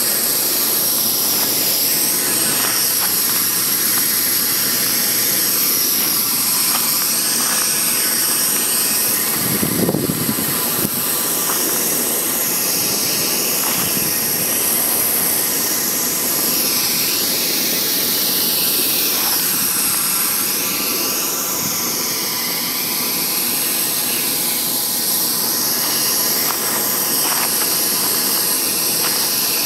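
Flame-thrower weed torch burning steadily: a continuous loud hiss whose pitch wavers slightly, with a brief low surge about ten seconds in.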